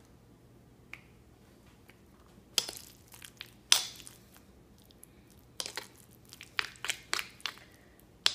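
Metal spoon mixing guacamole in a lava-stone molcajete: short scrapes and clicks of the spoon against the stone bowl, a few at first, then several in quick succession in the second half.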